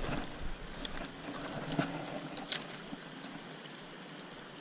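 Faint creekside ambience with a few light, sharp clicks scattered through it; a low wind rumble on the microphone fades out in the first second or two.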